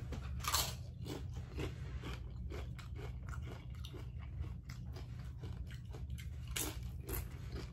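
A person biting into and chewing a taco up close, with many short crisp crunches; a louder bite about half a second in and another one near the end.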